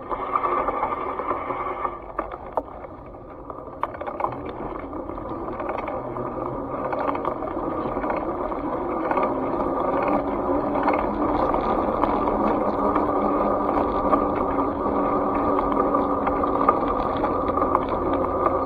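Steady rushing, rattling noise from a camera moving along a paved sidewalk, building gradually, with a few sharp knocks in the first few seconds.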